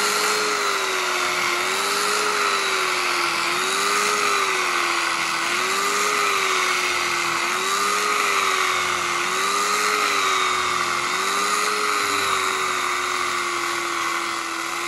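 Electric carving knife running, its two serrated blades running back and forth against each other as it slices through roast turkey breast. Its motor whine wavers up and down in pitch about every two seconds.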